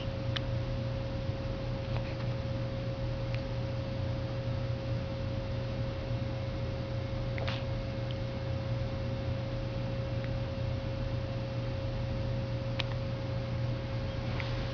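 A steady electrical hum: a low drone with a constant mid-pitched tone above it, over a soft hiss. A few faint brief clicks come through now and then.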